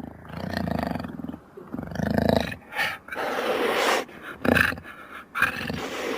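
Jaguar growling and snarling in a series of short, low calls. A longer, harsh, hissing snarl comes about three seconds in.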